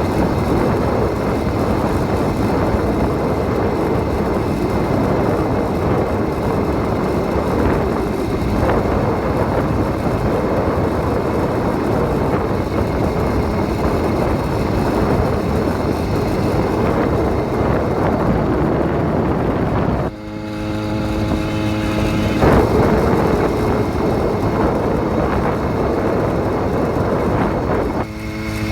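80cc motorized bicycle engine running steadily under way, with wind rushing over the microphone. About twenty seconds in the rush dips and the engine's pitched hum stands out for a couple of seconds before the noise returns.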